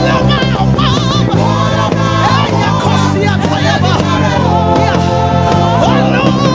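Live gospel worship music: several voices singing over a band, with a bass guitar holding sustained low notes underneath.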